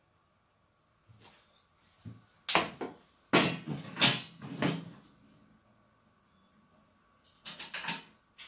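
Sheet-metal oven panel knocking and clattering as it is handled while the new bottom heating element is fitted to it, in two clusters of sharp metallic knocks.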